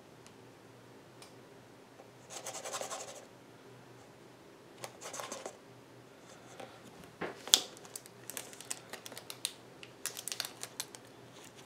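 Plastic deli cups being handled and moved on a tabletop: two bursts of scraping and rustling, a sharp click about seven and a half seconds in, then a run of small clicks and scratches.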